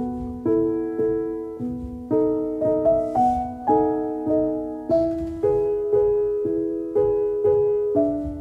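Background piano music: soft chords struck about twice a second, each ringing and fading before the next.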